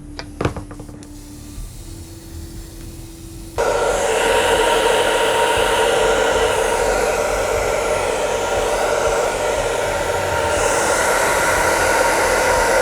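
An airbrush's small electric air compressor switches on abruptly about three and a half seconds in and runs steadily and loudly, a whirring motor noise with a few steady tones in it. Before it there are a few light clicks.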